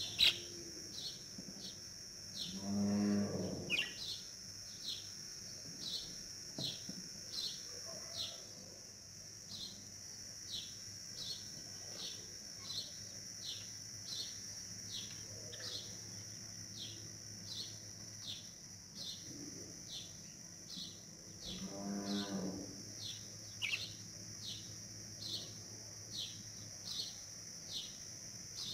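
A cow mooing twice, a long low call a few seconds in and another about two-thirds of the way through, over a bird chirping about once a second and a steady high-pitched buzz.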